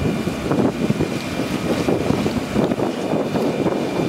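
Wind buffeting the microphone over the rush of water along a sailing yacht's hull under way, a steady rough noise.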